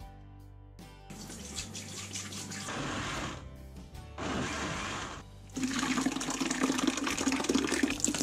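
Background music, then a countertop blender running on kiwi a little after a second in. Water pours steadily into a plastic fermenting bucket over a straining bag through the second half; the pouring is the loudest sound.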